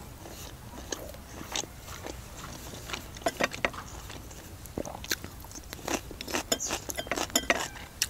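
Close-miked chewing of food, with short sharp mouth clicks and smacks scattered through and coming thicker in the second half.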